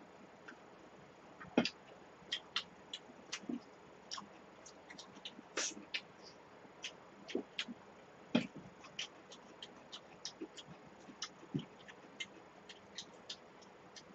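Close-up eating sounds of muk-sabal (jelly in cold broth): irregular short clicks and smacks from chewing and slurping, and from spoons and chopsticks tapping on stainless steel bowls, with a couple of louder clicks about one and a half and eight seconds in.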